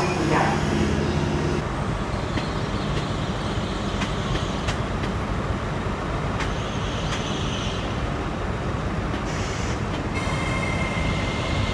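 A London Underground train's steady whine ends about a second and a half in. After it, an LNER Azuma high-speed train runs in braking: a steady rushing noise with a few faint clicks, then a steady high whine that begins about ten seconds in.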